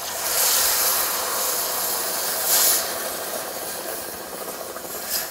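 Red wine poured into a hot pot of browned lamb, hissing and sizzling hard as it hits the hot pan and deglazes it. The hiss surges again about two and a half seconds in, then slowly dies down.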